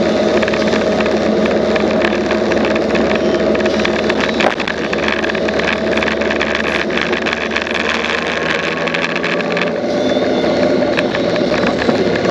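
Motorcycle engine running steadily while riding in traffic, with wind and road noise and a short knock about four and a half seconds in.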